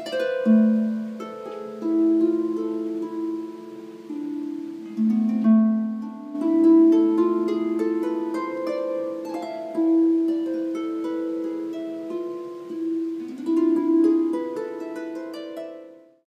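Double-strung harp played with the two hands alternating note by note ("ping pong"): A and E 1-5-8 broken chords in lurching glissandos down and up, in the Aladdin scale (C tuning with the G levers raised). The notes overlap and ring on, and the playing cuts off sharply just before the end.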